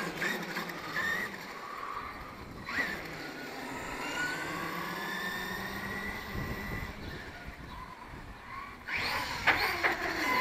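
Electric radio-controlled truggy running on a 4S LiPo battery: its motor whines, rising in pitch as it speeds up the road, with a few louder bursts near the end.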